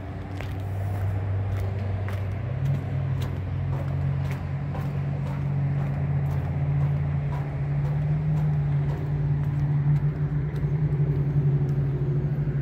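A motor vehicle engine running with a steady low hum that steps up a little in pitch about two seconds in, with regular footsteps on the dock planks over it.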